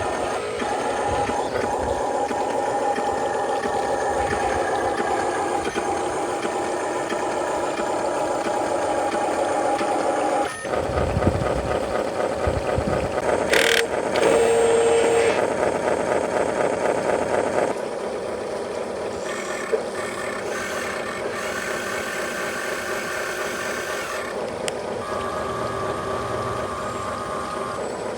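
Remote-control model truck running with a steady engine sound. About halfway through it grows louder for a few seconds, with a short hiss, then settles to a quieter, even running sound.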